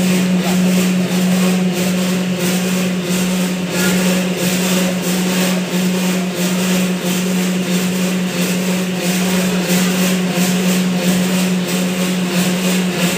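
Noodle-making plant machinery running: a steady hum with a whirring, rattling noise over it.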